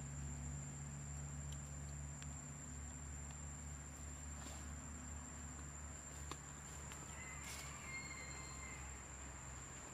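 Faint outdoor ambience: a steady high-pitched insect drone over a low steady hum. A short animal call comes about three-quarters of the way through, with a few faint clicks.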